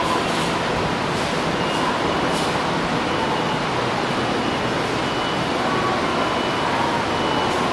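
Toyo Rapid Railway 2000 series electric train running past an underground platform: a steady rumble and rush of noise with faint whining tones that wander in pitch.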